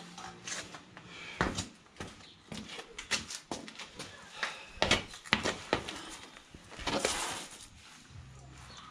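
Irregular clicks, knocks and clatter of metal tools and bolts being picked up and handled, with a short rustle about seven seconds in.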